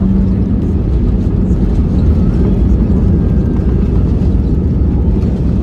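Steady, loud low rumble of an airliner, with no rise or fall.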